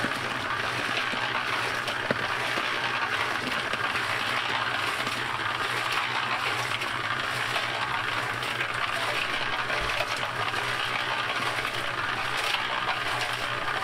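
Wet pebble concrete pouring out of a tipped Firman 120 L mini concrete mixer drum and sliding down a wooden chute: a steady gritty, sloshing rush with stones clinking. A steady low hum runs underneath.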